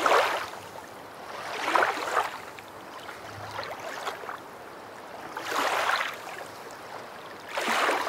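Four loud breaths drawn through a snorkel tube close to the microphone, each a short rush of air about two seconds apart, with a longer pause in the middle.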